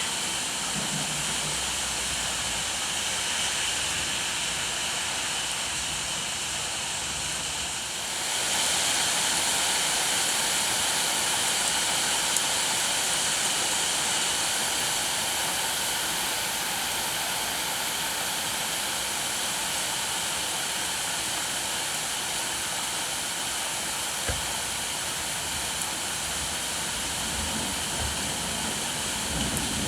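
Steady heavy rain, a dense even hiss that grows louder about eight seconds in.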